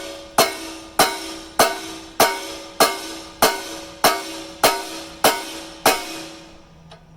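Sledgehammer blows on steel, about ten evenly paced strikes a little over half a second apart, each leaving a ringing tone that dies away, then stopping about six seconds in: typical of driving the retaining pin out of an excavator bucket tooth.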